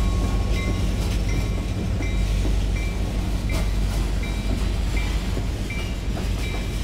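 Freight cars of a passing train, centerbeam flatcars loaded with lumber, rolling by on steel wheels. A steady heavy rumble carries a regular clack a little faster than once a second as the wheels cross the rail joints.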